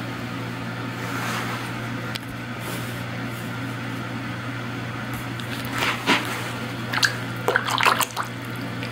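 Warm water splashing in a basin as a hand stirs it around a cat's paws, a few short splashes in the last three seconds, over a steady low hum.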